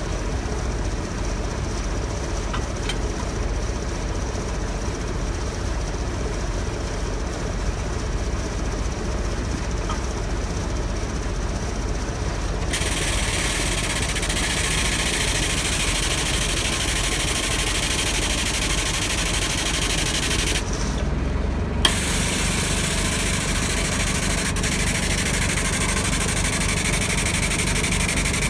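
An engine runs steadily under everything. From about halfway through, a loud, high hiss of compressed air starts. It cuts off for about a second near the end, a sharp click follows, and the hiss starts again.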